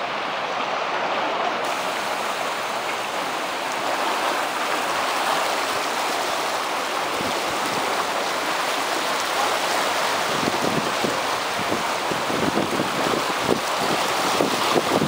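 Fast floodwater of a swollen river rushing and churning in a steady roar of moving water. In the last few seconds wind starts knocking on the microphone in uneven gusts.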